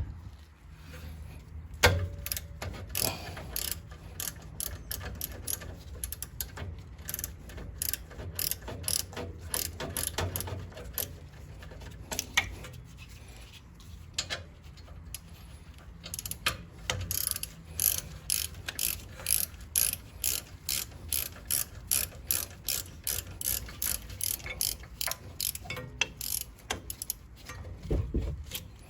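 Ratchet wrench clicking as it backs out a rear brake caliper bolt with a 7 mm Allen socket. The clicks are scattered at first, then come in a fast, even run of about three a second through the second half.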